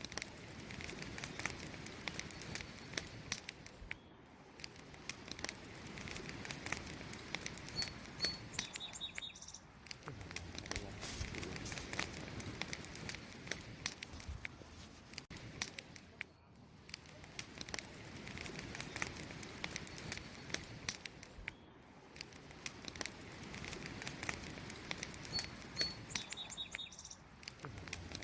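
Wood campfire crackling steadily, with frequent sharp pops and snaps over a low burning hiss. Two brief high chirps come through, once in each half.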